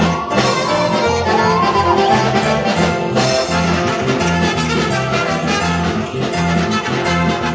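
Band music with brass instruments over a steady, regular bass line; a melody line slides up and down in pitch near the start.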